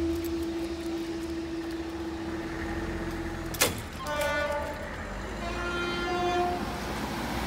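Level-crossing half-barrier rising, with a steady motor hum and a sharp clunk about three and a half seconds in. A few short pitched, horn-like tones follow.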